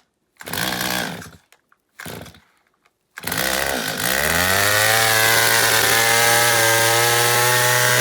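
Chainsaw engine: two short bursts, then about three seconds in it catches and revs up to a steady high-speed run, with the revs falling off at the very end.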